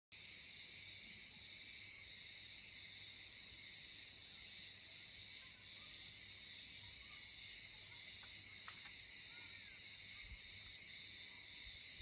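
Chorus of cicadas singing: a dense, steady, high-pitched buzz.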